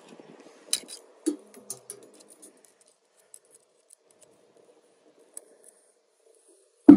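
A screwdriver tip clicking and scraping against the plastic housing and metal brush holder of an angle grinder as it is pried at, in short scattered ticks over the first couple of seconds. The ticks then thin out, and a sharp knock comes just before the end.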